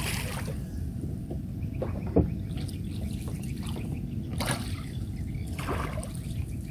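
Water splashing and trickling around a small boat, a few brief splashes standing out over a steady low background rumble.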